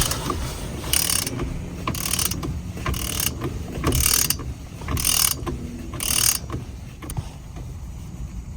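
Ratcheting torque wrench on an extension tightening a steering wheel bolt toward 33 foot-pounds: about six ratchet strokes, roughly one a second.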